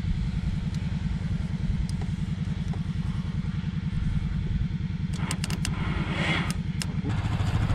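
ATV engine idling with a steady, even low putter. A few sharp clicks come in quick succession a little past the middle.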